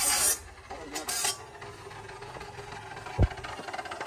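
Square steel tubing being handled on a stopped chop saw: a short metal scrape at the start, a couple of sharp metallic clinks about a second in, then a dull thump a little after three seconds.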